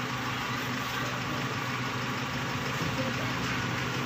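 An engine idling steadily, a low even hum that does not change.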